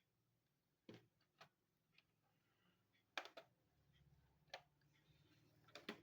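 Faint, scattered plastic clicks and taps, about five in all, from a laptop's back cover being fitted onto the case.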